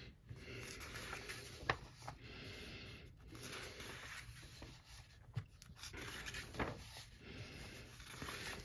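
Faint rustling of paper as the pages of a paperback colouring book are turned by hand, with a few soft taps.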